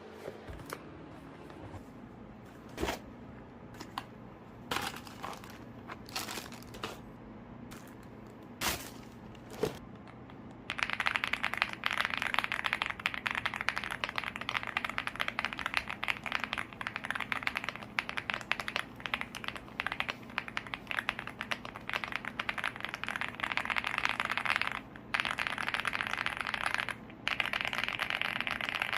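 Leobog Hi75 aluminium mechanical keyboard with its stock Greywood V3 linear switches: a few separate keystrokes, then fast continuous typing from about a third of the way in, broken by two short pauses near the end.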